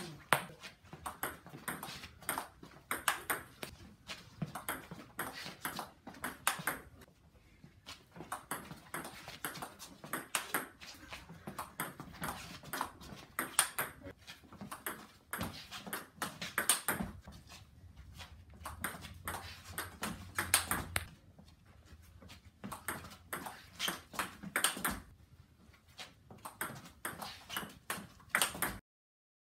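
Table tennis rally with a Stiga Carbonado 45 carbon blade: the ball clicks sharply off the bats and bounces on the table in quick alternating knocks, in several rallies with short breaks between them.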